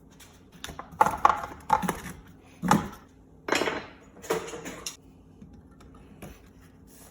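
Metal clanking and knocking as a fresh metal casting is knocked about in and lifted from its metal mold, about six sharp clanks in the first five seconds, then quieter.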